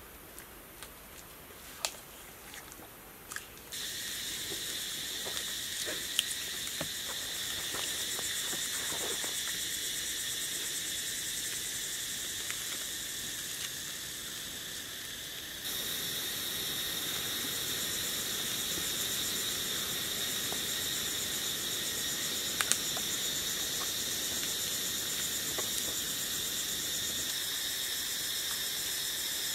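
Steady, high-pitched insect chorus, several droning layers at once, which comes in suddenly about four seconds in and gets louder around sixteen seconds in. A few sharp clicks and taps sound over it, mostly in the first seconds.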